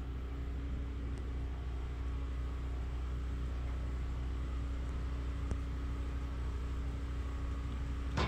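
Steady low outdoor hum, machine-like, with a faint steady tone over it, and a small click about five and a half seconds in and another at the very end.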